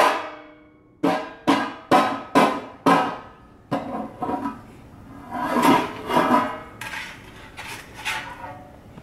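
Metal baking pans knocked and clattered against a tile floor, each strike ringing briefly: a quick run of about five clangs about a second in, then scattered, softer ones.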